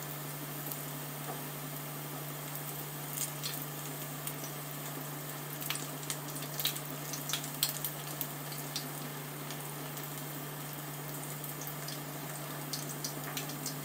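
Chakri deep-frying in hot oil in a steel kadai: a steady sizzle with scattered sharp crackles and pops, thickest in the middle as the pieces are turned over with a slotted spoon. The chakri are early in their frying and still bubbling hard.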